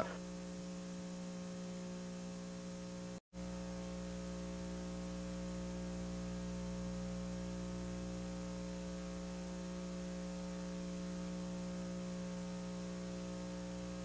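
Steady electrical mains hum with a buzz of many even overtones under faint hiss, cutting out completely for a split second about three seconds in.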